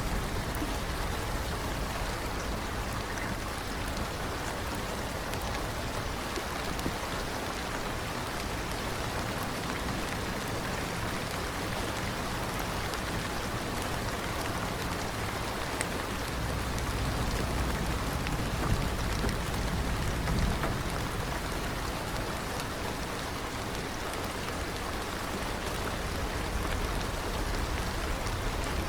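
Steady rain falling, an even hiss with scattered individual drops ticking and a low rumble underneath.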